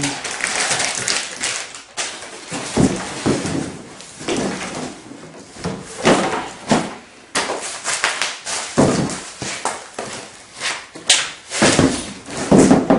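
Irregular rustling of packaging material around a bicycle being unwrapped by hand, with occasional sharp knocks as the bike's frame and parts are moved about.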